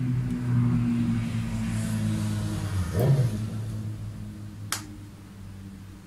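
Nylon cable tie pulled tight around a rubber hose: a short rising zip about halfway through, then one sharp click over a second later, over a low steady hum.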